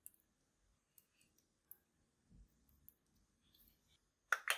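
Faint scattered clicks and taps as small makeup containers are handled, then two sharp clicks close together near the end as a small black eyeshadow pan in its clear plastic case is worked in the fingers.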